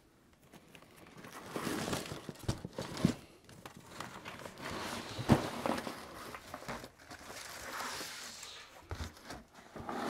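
An old Porsche 356 wiring harness being pulled out of a cardboard box: a tangle of wires rustling, scraping and dragging against the cardboard, with a few sharp knocks as it is set down on the steel work table.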